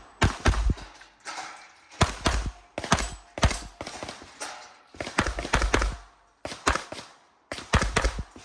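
Tanfoglio competition pistol fired rapidly in quick strings of two to four shots, a string every second or two, each shot a sharp crack with a low thump.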